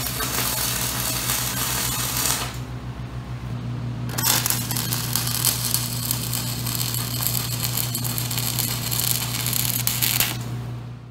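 Stick welding arc crackling and sizzling in two runs: one stops about two and a half seconds in, and a longer one strikes up about four seconds in and stops near the end. A steady low hum from the welding machine runs underneath.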